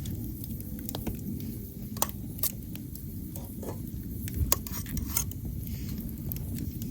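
Metal cookware and utensils clinking and knocking about six times, some with a brief metallic ring, over a steady low background rumble.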